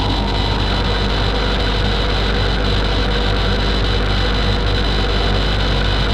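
A steady, loud drone of hiss-like noise with a low hum beneath it, unchanging throughout.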